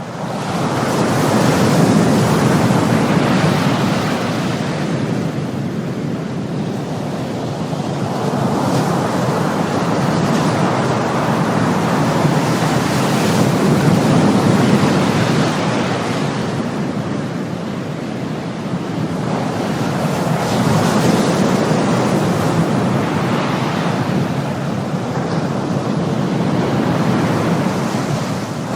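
Ocean surf: waves breaking and washing in as a continuous rush that swells and eases several times.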